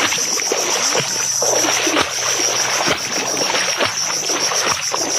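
Steady high-pitched chorus of insects, with irregular sloshing and splashing of shallow water as someone wades back toward the shore.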